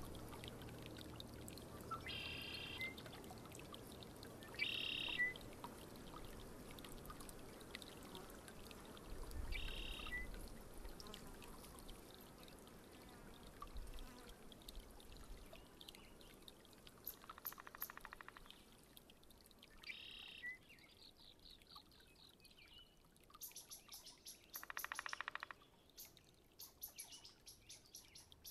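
Faint open-air ambience: a soft steady hiss with scattered short bird calls, the loudest about five seconds in. Two longer rapid pulsing sounds come later on.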